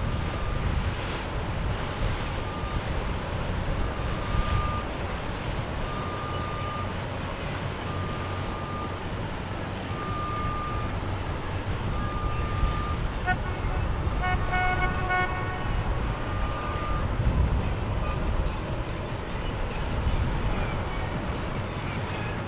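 Low rumble of passing boat engines with wind buffeting the microphone. A short high beep repeats about every two seconds, and a brief horn-like tone sounds a little past the middle.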